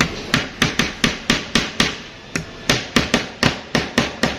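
A hammer driving a nail into wood with quick, even blows, about four a second. The blows break off briefly about halfway through, then carry on.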